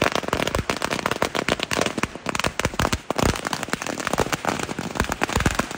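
A long string of firecrackers going off in a rapid, continuous chain of sharp cracks.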